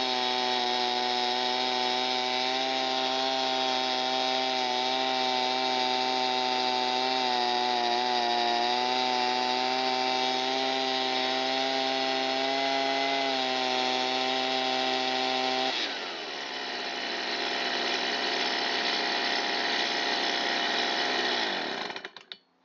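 Stihl BG55 leaf blower's small two-stroke engine running steadily. About sixteen seconds in its note changes abruptly and it runs on rougher before cutting out near the end.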